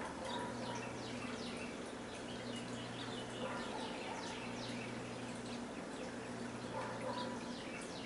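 Backyard birds chirping, a run of short high notes that each fall in pitch, repeated several times a second, over a steady low hum.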